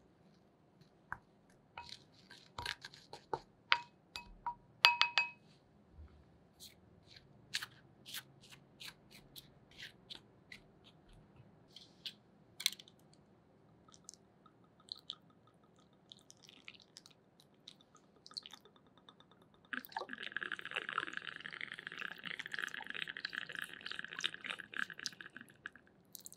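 A wooden spoon knocking and scraping against a glass mixing bowl of white powder, with sharp ringing clinks in the first few seconds. About 20 s in, a thin stream of water runs into the bowl for about six seconds, then stops.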